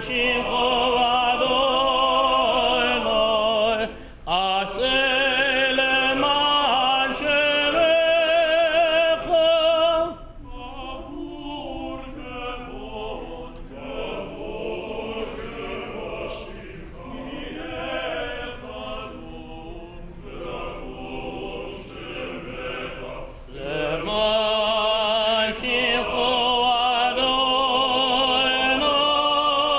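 A cantor sings Selichot liturgy in a full operatic voice with strong vibrato, joined by a choir. The singing drops to a quieter, softer passage through the middle, then swells loud again near the end.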